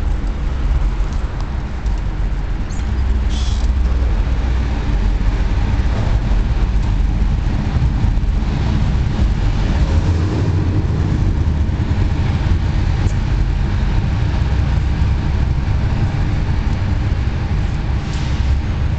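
Steady low rumble of a parking garage's background noise, with traffic and machinery reverberating off the concrete, and a brief crackle about three and a half seconds in.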